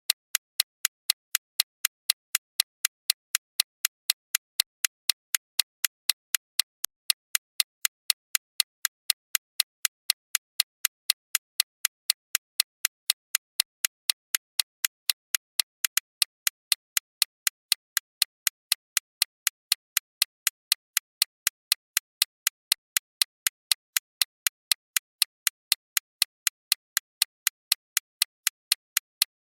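Time-bomb timer sound effect: sharp, high, clock-like ticks at an even pace of a few a second, unchanging throughout.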